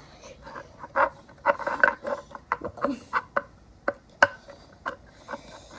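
Irregular small clinks and knocks of hard objects being handled, with one sharper knock about four seconds in.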